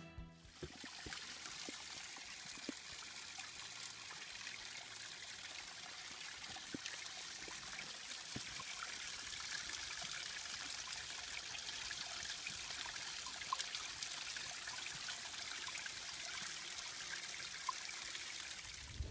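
Water trickling in thin streams down a moss-covered rock face and splashing onto the rocks below: a steady, even rushing with a few faint single drips.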